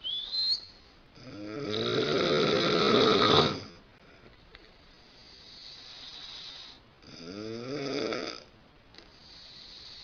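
A woman snoring loudly in her sleep. A short rising whistle comes right at the start, then two loud, rattling snores, each followed by a softer, hissy breath.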